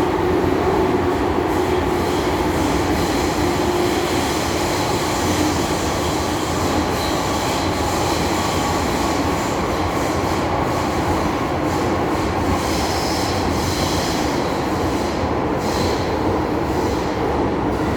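MTR M-train electric multiple unit heard from inside a car while running: a steady rumble of wheels and running gear, with faint high wheel squeal coming and going through the second half.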